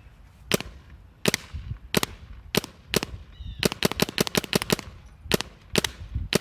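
Paintball marker firing lightweight 3D-printed TPU paintballs fed from a Dye Rotor hopper. Single shots come every half second or so, then a quick string of about ten shots around four seconds in, then a few more single shots.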